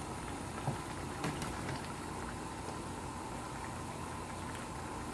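Fish soup with tomato and egg bubbling in a pan: a steady bubbling hiss, with a few faint clicks.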